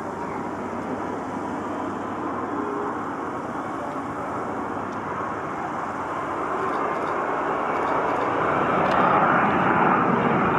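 Rolls-Royce Trent 772B turbofan engines of an Airbus A330-243 on landing approach: a steady jet roar growing louder as the aircraft comes closer, with a thin whine running through it.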